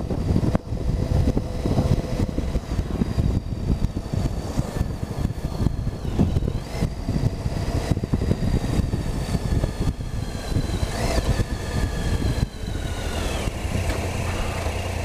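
Triumph Tiger 800's three-cylinder engine running as the motorcycle rides through town, with gusty wind noise on the microphone. About twelve seconds in, the engine note falls and steadies as the bike slows toward idle.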